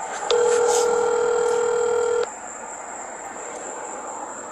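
Telephone ringback tone heard through a phone's speaker: one ring, a steady low tone lasting about two seconds that stops abruptly, while the call to a mobile number waits to be answered.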